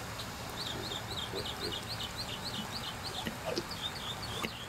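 A bird singing a rapid run of short, high chirps, about four or five a second, starting about half a second in, with a couple of faint clicks.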